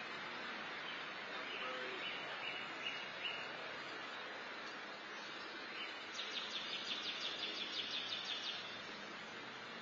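Steady outdoor background hiss, with a bird giving a few short high notes and then a quick run of about five chirps a second lasting a couple of seconds.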